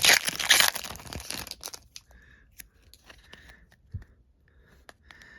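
A foil Pokémon card booster pack being torn open, its wrapper ripping and crinkling loudly for about the first second and a half, then only light crinkles and small clicks as the cards are handled, with a soft thump about four seconds in.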